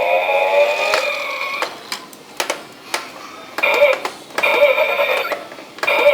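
Electronic siren-like tone that glides upward at first, then sounds in short on/off bursts with clicks in the gaps.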